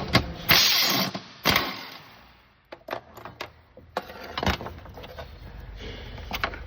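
Cordless power ratchet running in two short bursts to back out E12 Torx bolts, followed by scattered clicks and knocks of the tool and fasteners.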